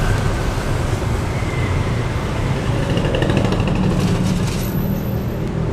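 Steady low hum of vehicle engines in the background.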